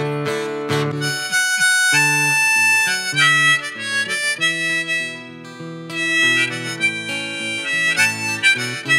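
Harmonica playing a melody of held notes over acoustic guitar chords, an instrumental interlude with no singing.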